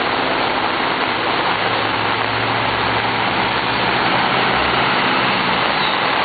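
City bus pushing through a flooded street: a steady rush of water thrown up by its wheels, with the low hum of its engine coming in a couple of seconds in as it draws close.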